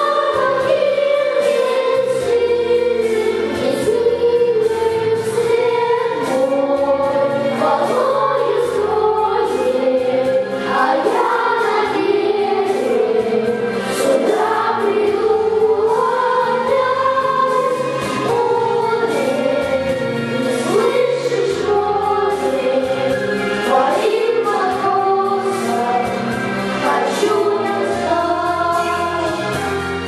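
Children's vocal ensemble of boys and girls singing a song together into microphones, over instrumental accompaniment.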